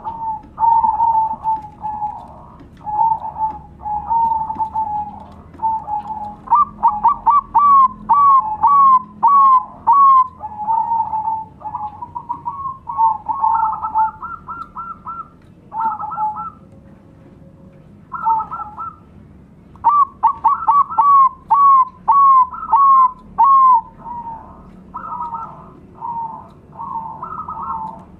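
Several zebra doves (perkutut, Bangkok-bred and local birds) cooing together. Their repeated rolling coos and runs of quick, bubbling notes overlap, with a brief lull a little past halfway.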